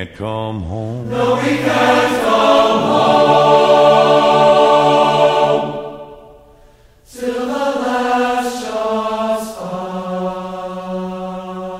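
Choir singing long held notes with no clear words. The sound swells to a peak about four seconds in, fades away about six seconds in, then comes back on another sustained chord.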